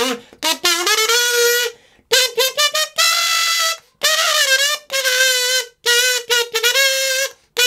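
A kazoo tune: a buzzy melody of quick short notes and longer held ones, the held notes wavering slightly, with short breaks between phrases.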